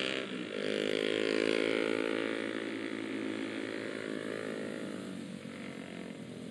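Motorcycle engine running while riding along the road, over wind and road rush. The engine note holds steady and eases slightly lower near the end.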